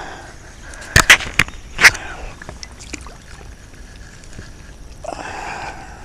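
A bowfin being handled for release on the creek bank: four sharp slaps and knocks come quickly one after another about a second in, then low steady outdoor noise.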